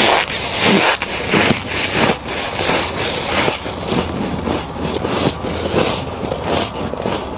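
Freezer frost being chewed close to the microphone: repeated crunches about two a second, louder in the first half, then quieter, finer crunching.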